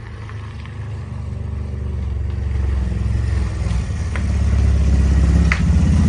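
A small motorcycle engine running as the bike rides up, its sound getting steadily louder as it approaches, with a slight rise in revs near the end.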